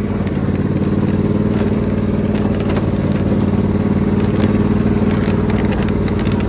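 Riding lawn mower engine running at a steady speed while the mower is driven along.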